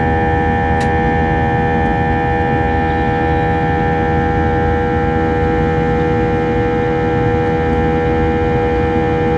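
Airbus A321-231 airliner cabin noise, heard from a passenger seat: a steady rumble of the IAE V2500 turbofan engines and airflow, with constant engine tones humming on top.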